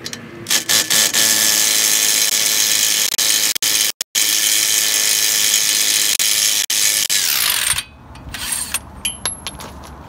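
Cordless impact driver hammering on the 32 mm front drive shaft nut of a 2012 Chevy Volt to loosen and remove it. It starts with a couple of short bursts, then runs in one long rattling stretch with a brief break partway, and winds down near the end. A few light clicks follow as the tool and nut come off.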